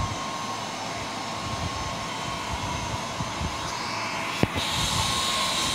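Dog grooming dryer (blower) running steadily, a rushing of air with a faint whine as it blows on the dog's coat. A click comes about four seconds in, after which the hiss sounds sharper.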